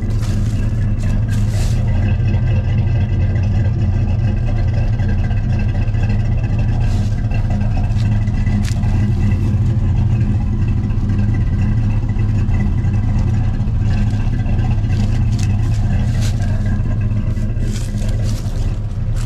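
Turbocharged Ford 302 V8 in a 1987 Ford Ranger idling steadily.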